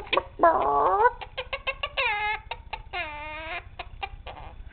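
Quaker parrot calling: several drawn-out squawks that rise or dip in pitch, with a run of short, quick notes between them.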